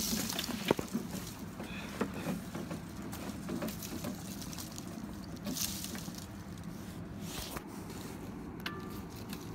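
Rustling, scraping and a few sharp knocks as someone climbs inside a Christmas-tree frame, with the louder knocks in the first second, over a steady low hum.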